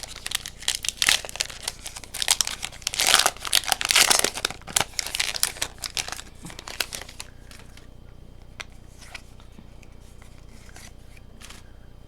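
Foil booster-pack wrapper of a Pokémon card pack being torn open and crinkled by hand. The dense crinkling lasts about seven seconds, then dies down to a few faint rustles and clicks.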